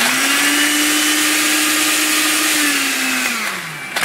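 Hamilton Beach smoothie blender with a 650-watt motor running on ice cubes with no liquid in its plastic jar: a steady motor hum over a dense grinding rattle. Near the end its pitch falls as the motor slows down.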